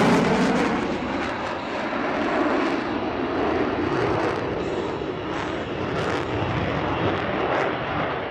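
Single-engine F-16 fighter jet roaring just after a fast low pass. It is loudest at the very start, eases over the first second or so, then holds as a steady rumbling roar with some crackle.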